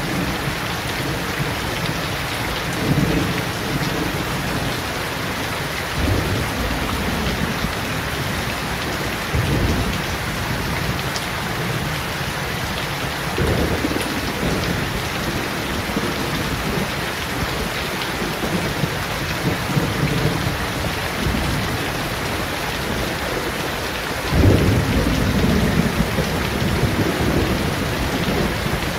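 Steady rain falling on leaves and a wet paved yard, with low rumbles swelling every few seconds, the loudest about 24 seconds in.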